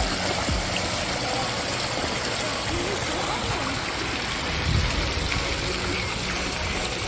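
Shallow stream rushing steadily over a small stone weir in a stone-lined channel, with one low bump a little under five seconds in.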